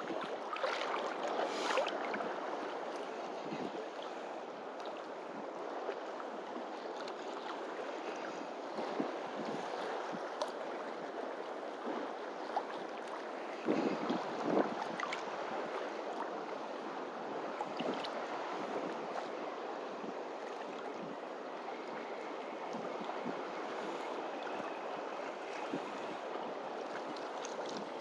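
Steady wind and small waves washing on a beach, a continuous hiss of noise with a couple of brief louder gusts or rustles.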